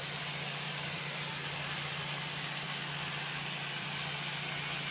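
An engine running at a steady speed with a constant hiss over it, unchanging throughout.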